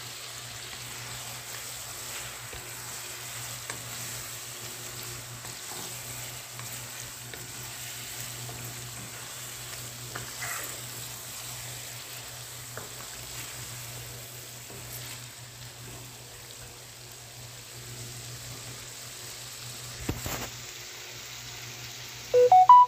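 Chicken sizzling steadily in ghee with garlic-ginger paste in a karahi (wok) on a gas stove, with a steady low hum underneath. A few short electronic beeps sound near the end.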